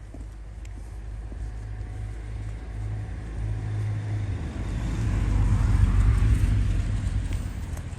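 A motor vehicle passing close by, its engine and tyre noise growing louder to a peak about six seconds in and then fading.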